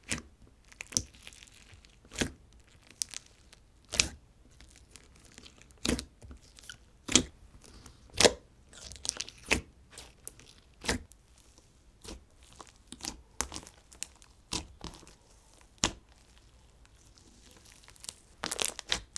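Fingers poking, pressing and stretching a jelly slime mixed with bingsu beads: sharp wet pops and crackles at irregular intervals, roughly one a second, coming faster and louder near the end.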